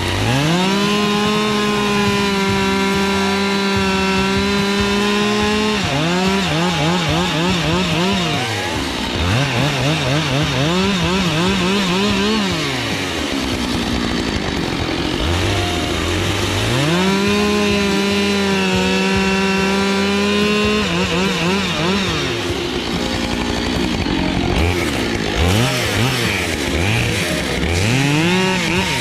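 Husqvarna 572 XP two-stroke chainsaw bucking firewood. It revs to full throttle and holds for about five seconds through a cut, then the throttle is blipped several times and it falls back toward idle. Past the middle comes a second held full-throttle cut of about five seconds, and more short throttle blips near the end.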